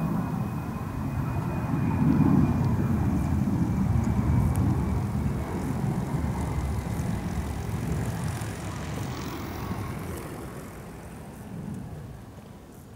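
A Lockheed Martin F-35 Lightning II's single Pratt & Whitney F135 jet engine rumbling as the jet flies by on approach with its landing gear down. It is loudest about two seconds in and fades steadily away toward the end.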